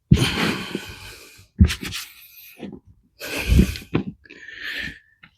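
Hands rummaging through compost in a potato container, giving several short bursts of rustling and scraping with soft thuds, separated by brief pauses.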